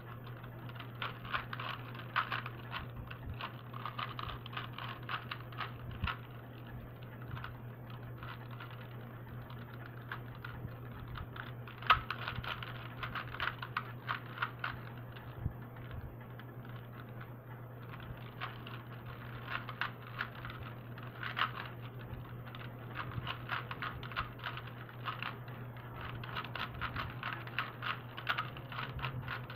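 3x3 Rubik's cube being turned fast during a speed solve, its plastic layers clicking in quick flurries with short pauses between.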